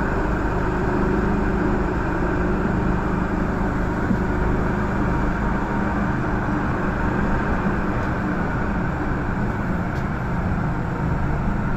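MTR M-train electric multiple unit running through a tunnel, heard from inside the car: a steady rumble of wheels on the track with a faint steady hum.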